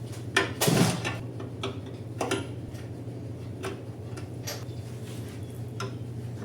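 Scattered clicks and knocks of metal parts or tools being handled, over a steady low hum. The loudest knock is just under a second in.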